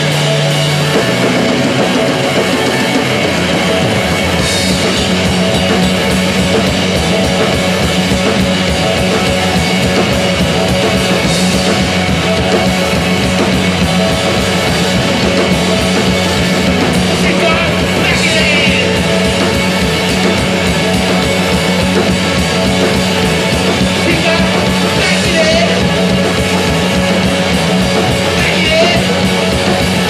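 Live rock band playing loud and steady: drum kit, guitars and keyboard, with a singer.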